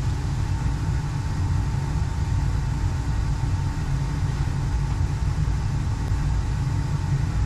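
Gas-fired Slant/Fin Galaxy steam boiler running during a draft test: a steady low rumble with a faint steady high tone over it.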